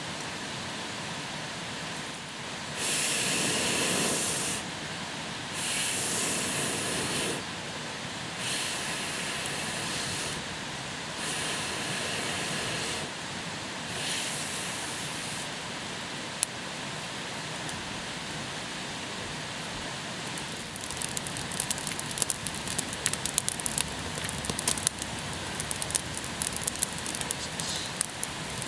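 Five long breaths blown into a smouldering tinder bundle lit from a flint-and-steel spark, each a rushing hiss of a second or two. In the last third the kindling catches and the fire crackles with quick, irregular snaps.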